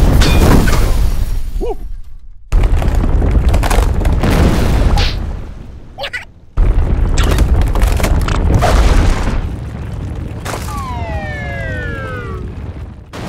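Cartoon earthquake sound effects: a heavy, loud rumbling with cracking booms, coming in three surges that each start suddenly. Near the end the rumble eases and a long falling-pitched sound glides down over about two seconds.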